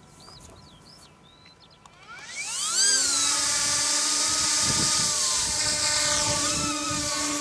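Eachine E200 Pro RC helicopter spinning up on the ground: a motor whine rises steeply in pitch about two seconds in, then settles into a steady high whine with the rush of the spinning rotor blades.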